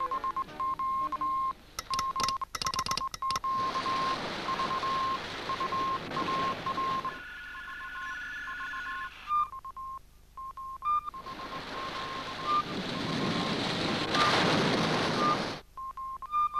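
Morse code: a single beeping tone keyed in short and long pieces, heard through radio hiss and static. About two seconds in there is a burst of sharp crackles, and a few higher whistling tones come in near the middle.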